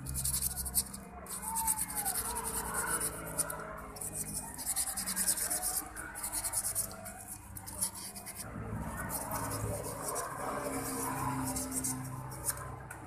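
Sandpaper rubbed quickly back and forth over the cylinder block of a grass-cutter engine to clean it, a run of scratchy strokes broken by a few short pauses.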